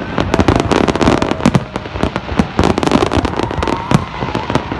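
Aerial fireworks going off in a rapid, unbroken barrage, several bangs a second.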